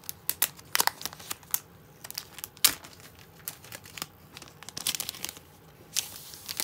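Sticker sheet and its wrapping crinkling and rustling as they are handled, in short irregular crackles with a denser flurry about five seconds in.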